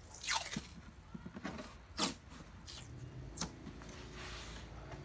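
Masking tape ripped off its roll, with a falling rip about a third of a second in, then a few sharp short sounds, and the tape rubbed down onto a hard plastic tool case near the end.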